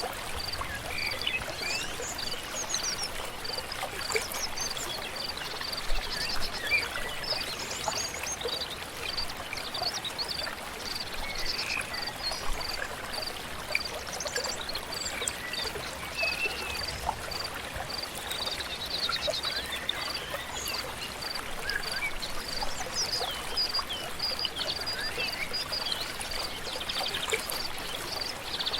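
Flowing stream with scattered birdsong over it, and a short, high call repeating evenly about once a second.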